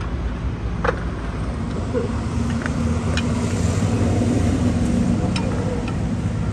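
Steady rumble of road traffic with a passing engine hum, broken by a few sharp clinks of a steel ladle against a steel serving bowl and platter.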